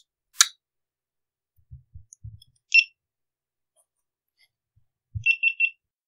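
Handling sounds (a sharp click, then a few soft low thumps), followed by high electronic beeps from a GoPro Hero 8 camera: one single beep, then a bump and three quick beeps of the same pitch, as the camera is stopped at the end of recording.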